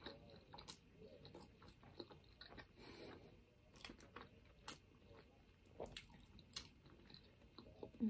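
Faint close-up chewing of a mouthful of rice, with scattered small wet mouth clicks and smacks.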